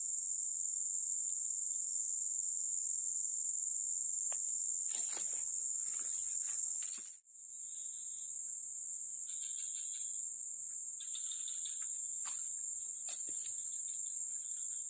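A chorus of insects making a steady, high-pitched drone. It cuts out for a moment about halfway through, then resumes. A few faint clicks and soft chirps can be heard under it.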